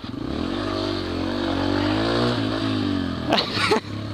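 Yamaha TTR125 trail bike's small four-stroke single-cylinder engine running under throttle, its pitch climbing at first and then rising and falling as the throttle is worked on the trail. About three seconds in there is a short, loud scraping clatter.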